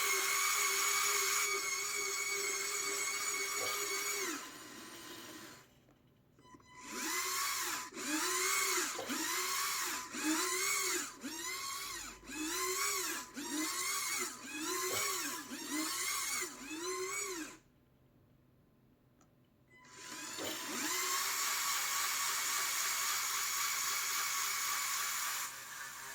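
Small electric motors of a remote-controlled LEGO Technic DeLorean whining. A steady whine for about four seconds, then after a short pause about ten quick speed-ups and slow-downs, roughly one a second. After a brief silence the steady whine returns.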